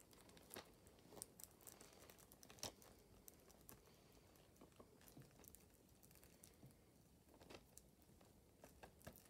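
Near silence, with faint scattered clicks and rustles from a hand handling a plastic DVD case on fabric bedding.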